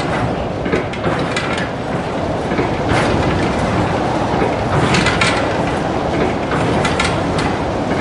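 A windmill's mechanism running, recorded up close: a steady mechanical rumble with irregular metallic clanks and rattles, busiest around the middle.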